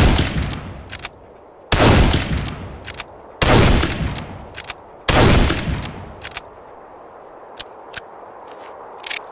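Mauser Gewehr 98 bolt-action rifle firing four shots about a second and a half apart, each with a long echoing tail. Metallic clicks of the bolt being worked follow each shot. After the last shot the bolt clicks on its own for a few seconds.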